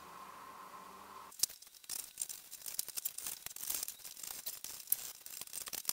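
Cardboard shipping box being cut open with scissors: the packing tape and cardboard crackle and scrape in quick, irregular clicks, starting about a second and a half in.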